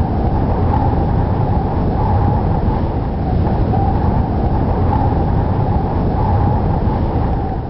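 Howling wind: a steady deep rumble with a high whistle wavering over it, starting to fade near the end.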